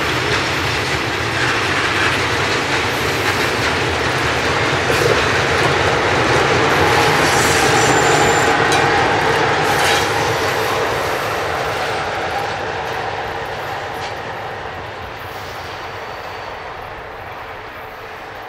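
Electric-hauled freight train of covered hopper wagons rolling past, wheels clattering steadily over the rail joints. The noise swells toward the middle and fades gradually through the second half as the train draws away.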